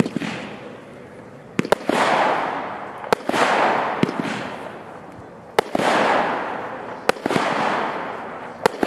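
Weco 'Resident Evil' firework battery firing: a sharp shot about every one and a half seconds, one of them doubled, each followed by a burst of crackle that fades over a second or two.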